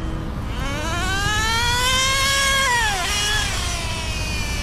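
Traxxas Nitro Rustler's 2.5 two-stroke nitro engine, tuned slightly rich during break-in, revving up in a long climbing whine. About three seconds in it drops off sharply, then gives a shorter burst that falls away.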